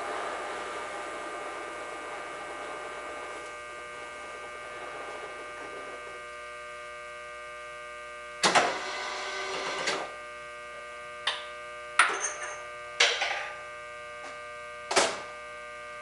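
Horizontal boring mill spindle running with a steady hum while a brazed-carbide boring bar takes a light finishing cut through a welded connecting-rod bore; the cutting noise fades out as the pass ends. A louder burst follows about eight and a half seconds in, then four short sharp knocks.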